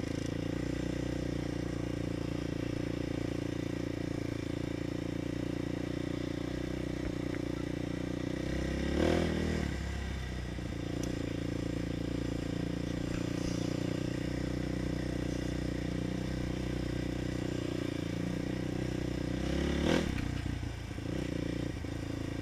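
Single-cylinder 450 cc quad engine running steadily as it is ridden to warm up, revving up briefly and dropping back twice: about nine seconds in and again near the end.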